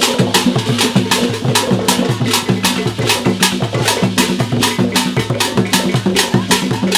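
Traditional Ghanaian drum ensemble playing live: wooden barrel drums struck with sticks in a fast, steady rhythm of sharp strokes over repeating deep drum tones, with a gourd rattle shaken among them.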